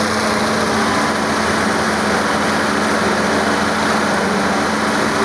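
Excavator's diesel engine running steadily under a constant hum, with no rise or fall in pitch.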